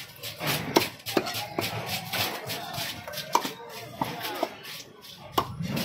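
Heavy knife chopping a rohu carp on a wooden log chopping block: several sharp knocks of the blade striking through the fish into the wood, spaced irregularly.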